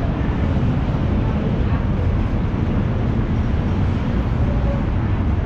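Steady low rumble of road traffic on a busy city boulevard, with no distinct events.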